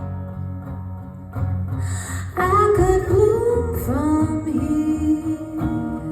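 Live song with electric bass and guitar holding the band's chords, and a wordless sung phrase in the middle that swells, bends and settles onto a held note.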